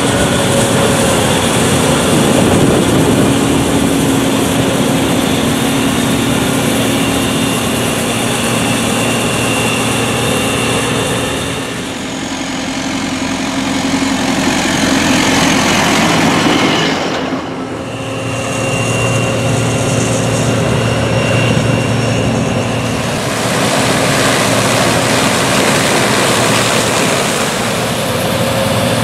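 Heavy diesel farm machinery running steadily under load: a John Deere 2266 Extra combine harvesting corn, and a blue MTZ (Belarus) tractor pulling a grain trailer. The engine drone changes abruptly about 12 and 17 seconds in, and again a little past 23 seconds.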